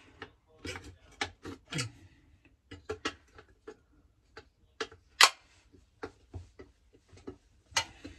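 Pliers tapping and gripping the sheet-steel cover of a breaker box as a knockout blank is worked loose and twisted out: a scattered run of sharp metallic clicks and knocks, the loudest about five seconds in.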